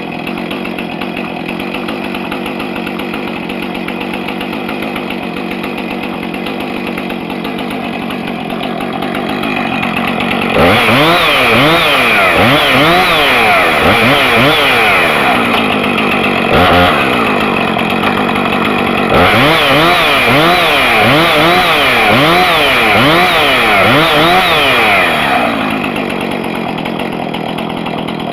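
Husqvarna 455 Rancher's 55.5 cc two-stroke chainsaw engine running steadily, then revved up and down over and over in two long spells, about two revs a second, before settling back to steady running.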